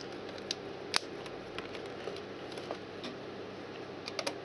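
Small screwdriver and screw clicking and scraping against a plastic siren casing as the screw is worked into its hole, with a sharp click about a second in and a few quick clicks near the end, over a faint steady hum.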